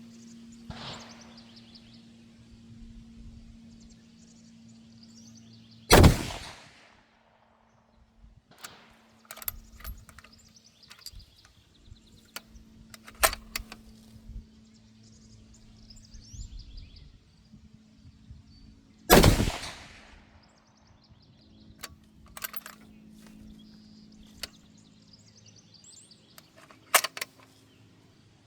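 Two rifle shots from a custom rifle chambered in 25 GT fitted with a Preece Precision Stinger 5-port muzzle brake, about 13 seconds apart. Quieter sharp clicks and knocks come between and after the shots.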